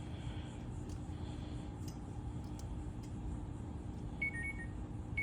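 Digital multimeter beeping, two short two-note beeps near the end, over a steady low hum. The meter is being used to check the compressor windings.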